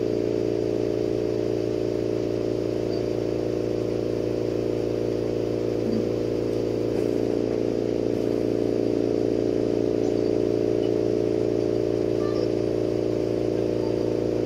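Steady drone of a lampworking bench in use: the glassworking torch burning, under a constant machine hum that holds several pitched tones.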